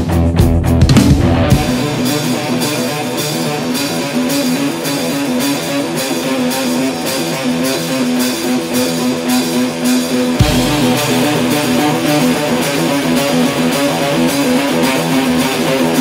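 Rock music soundtrack, guitar-led and without singing. The heavy low end drops out about a second and a half in, and the music grows brighter about ten seconds in.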